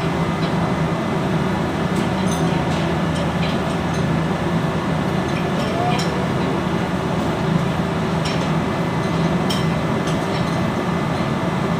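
Loud, steady machinery drone with a low hum, with a few light metallic clinks scattered through it.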